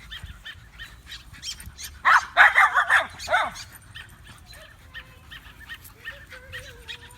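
A dog barking about four times in quick succession, two to three and a half seconds in, with birds chirping faintly around it.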